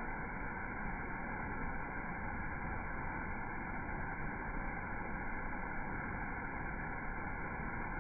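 Steady, unbroken rush of water from a waterfall.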